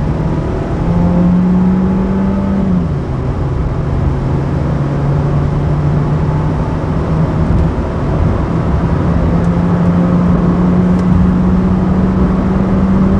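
Cabin sound of a 2024 Volkswagen Jetta driving at speed: the 1.4-litre turbocharged four-cylinder engine hums steadily under road and tyre noise. The hum steps up and down in pitch a few times.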